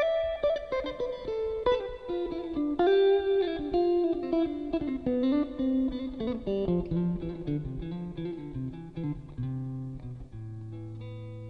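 Electric guitar, a sunburst Stratocaster-style instrument, picking a slow single-note melody that steps downward. Near the end it settles on a held low note.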